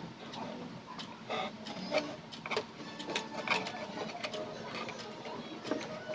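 Irregular small clicks, taps and rustles of hands handling thin hookup wires and an electric soldering iron while soldering wire joints.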